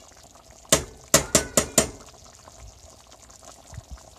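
A metal utensil knocked five times in quick succession against the skillet, about a second in, over the faint bubbling of Hamburger Helper simmering in the pan.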